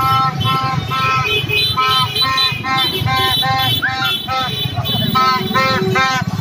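Motorbike horns honking in rapid repeated beeps, several horns at slightly different pitches, over the low rumble of many passing motorbike engines.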